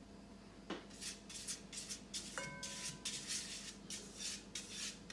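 Silicone pastry brush swishing over the inside of an aluminium cake tin in quick repeated strokes, about three a second, spreading ghee to grease it; one short ringing tone about halfway through.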